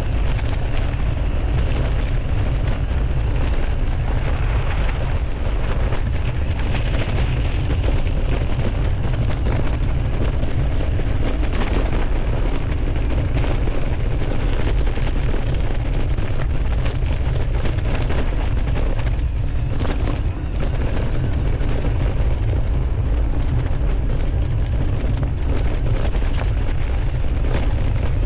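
Mountain-bike riding heard through a GoPro Hero11's microphone: wind buffeting the microphone as a steady, heavy low rumble, with tyre and trail noise and frequent small rattles and knocks from the bike over rough ground. The noise eases for a moment about twenty seconds in.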